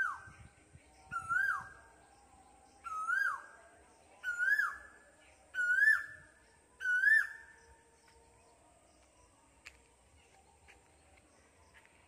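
A bird in a tree calling six times, about one call every second and a half. Each call is a single note that swoops up and then drops, and the calls grow louder one after another.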